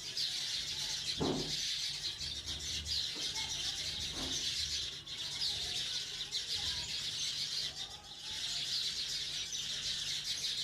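Many small birds chirping continuously, a dense chorus of short chirps, over a steady low hum, with a soft knock about a second in and another about four seconds in.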